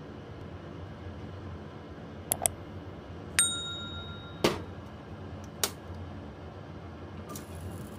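Subscribe-button sound effect over a steady low hum: a quick double click, a bright bell-like ding with a short ring, then two more single clicks.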